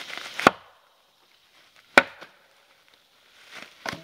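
A half-sawn log struck hard against a tree trunk to split it along its natural crack: two sharp wooden whacks about a second and a half apart, the second the loudest, and a smaller knock near the end.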